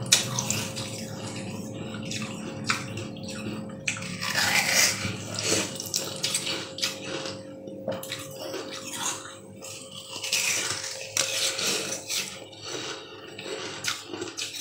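Close-up wet eating sounds of a translucent green jelly-like food: squelchy bites and chewing with many small wet clicks, louder wet bursts about four and ten seconds in.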